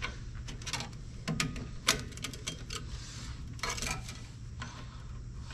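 Irregular light metallic clicks and clinks as mounting hardware is fitted by hand onto the lower mount of a new truck shock absorber. A steady low hum runs underneath.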